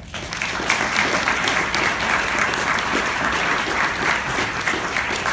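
Audience applauding: a dense clatter of many people's handclaps that starts suddenly and goes on steadily.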